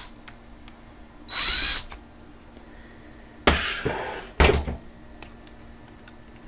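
Electric drill run in a short burst of about half a second with a rising whine, then a thump and a sharp knock of the drill or the part being handled.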